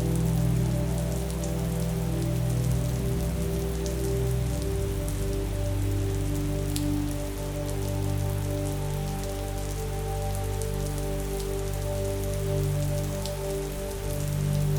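Steady rain pattering with scattered sharp droplet ticks, over soft background music of long held chords that shift to a new chord about four to five seconds in.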